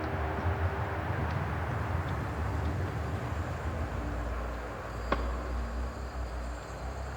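Tomb-wind ambience: a steady low rumble with a windy hiss over it. A few faint held tones die away about a second in, and a single sharp click comes about five seconds in.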